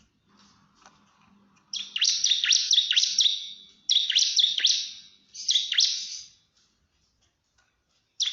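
Bar-winged prinia (ciblek) singing its rapid 'nembak' song: three bursts of quick, sharp downward-sweeping chirps, the first starting a couple of seconds in, with short pauses between them and a fourth burst beginning at the very end.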